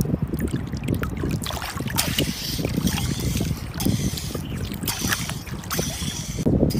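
A hand sloshing and splashing in shallow seawater while feeling through the sand for clams, with short splashy clicks over a steady rumble of wind buffeting the microphone.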